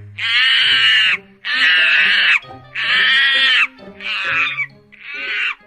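Monkey calling: five loud, pitched calls, each under a second long and spaced about a second and a half apart, the last two weaker. Background music plays underneath.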